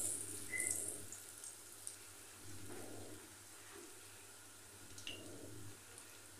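A besan-battered bread roll frying in hot oil in a pan: a sizzle that fades within the first second to a faint, steady bubbling, with a few small crackles.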